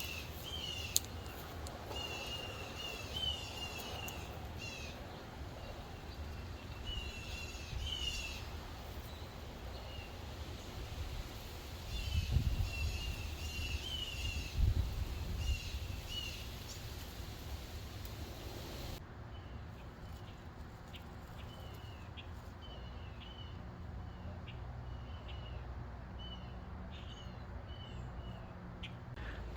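Small songbirds chirping outdoors in short repeated phrases, with a low rumble that swells twice about halfway through.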